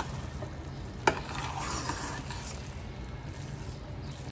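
Spoon stirring sticky cooked glutinous rice in a stainless steel pot, with one sharp clink of the spoon against the pot about a second in.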